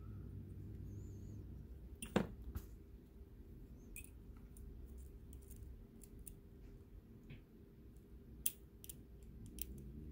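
Lock pick clicking and scraping against the pins inside a Mul-T-Lock Junior cylinder held under a tension bar: scattered light metallic clicks, the sharpest about two seconds in.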